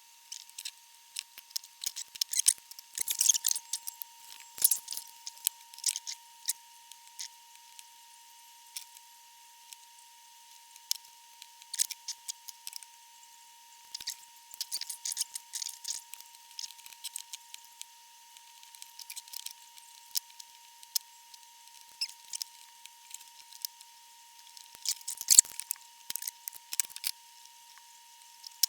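Irregular small clicks, taps and snips of hand tools and electronic components being handled at a workbench during amplifier re-capping, with clusters near the start and about 25 seconds in. A faint steady high tone runs underneath.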